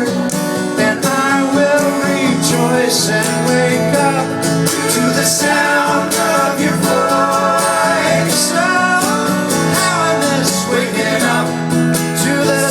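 Live pop-rock band playing, guitar prominent, with the steady full sound of a concert mix.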